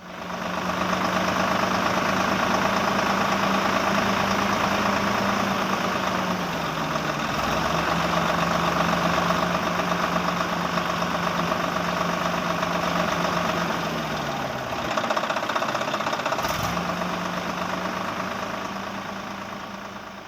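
A small motor running with a steady whirring hum. Its pitch sags briefly twice, as if slowing under load, and drops out for a moment near the end.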